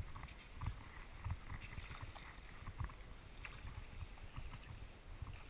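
Wind rumbling and buffeting on the microphone, with light water sloshing and lapping at the shallow shoreline.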